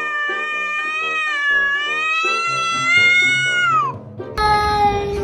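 A cat yowls in one long drawn-out call lasting about four seconds, with background music keeping a steady beat underneath. About four and a half seconds in, a second, lower cry begins and slides downward in pitch.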